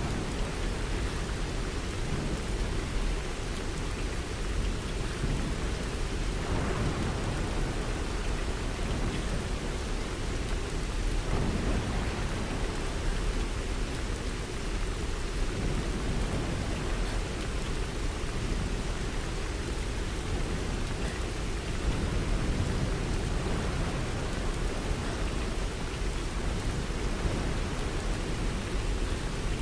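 Steady rain falling, an even hiss over a low, slowly swelling rumble.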